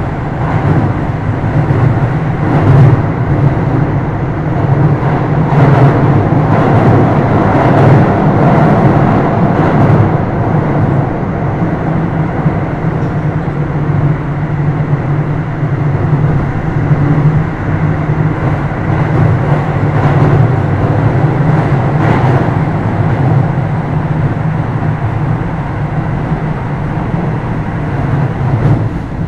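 Interior running sound of a Keio 2nd-generation Series 5000 electric motor car under way: a steady low rumble from wheels, drive and track, getting quieter near the end.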